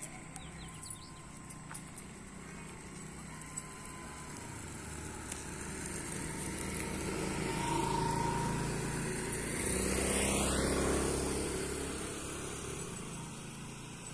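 Motor traffic passing by: engine and tyre noise swells to a peak about eight seconds in, peaks again a couple of seconds later, then fades away.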